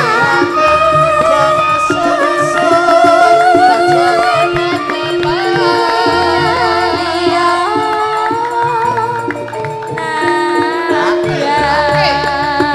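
Javanese gamelan (karawitan) music with a female sinden singing a wavering vocal line over steady metallophone tones and a low drum pulse.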